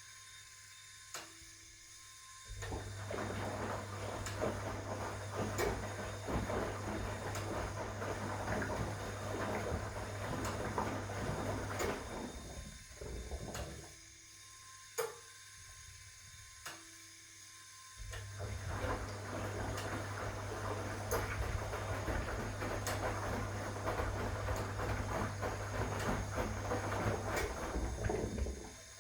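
1961 AEG Lavamat Noris front-loading washing machine in its wash action: the motor hums and the drum churns the wet laundry for about ten seconds, stops for about five seconds with a few clicks, then runs again for about ten seconds.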